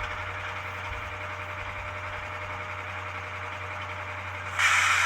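HO-scale ScaleTrains ES44AC model locomotive's sound decoder playing its air compressor effect: a steady running hiss and chug over a low idling hum. A louder burst of hiss comes in near the end.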